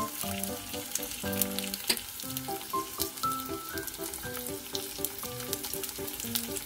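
Dumplings sizzling as they pan-fry in oil, with steady crackling and small pops, frying until golden brown. A background music melody plays over the sizzle.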